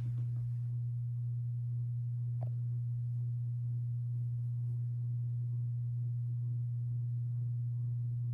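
Hunter Builder Plus ceiling fan running in reverse, its motor giving a steady low hum: the fan is noisy, even with its light globes tightened. A faint click about two and a half seconds in.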